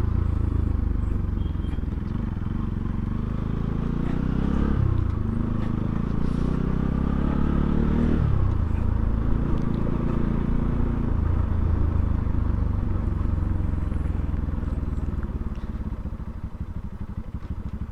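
Bajaj Pulsar NS200's single-cylinder engine on the move. The revs rise twice and drop sharply each time, as at gear changes. The engine then holds steadier and eases off toward a slow, even running near the end.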